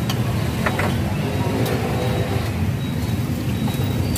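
Steady low rumble of background traffic noise, with a few light clinks of bowls and utensils.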